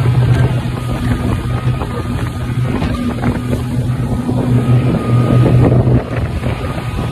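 Speedboat's outboard motor running at speed with a steady drone, over wind buffeting the microphone and the rush of water. About six seconds in, the engine note drops away and the sound gets quieter.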